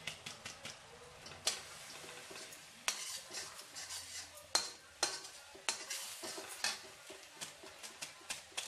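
A perforated steel spoon scraping and clicking irregularly against a metal pan while stirring a spice masala, which sizzles as it fries.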